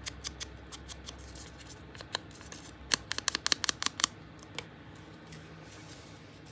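A small piece of paper being worked against a wooden-handled hand crafting tool: a string of short scratchy clicks, thickest in a quick run of about a dozen about three seconds in.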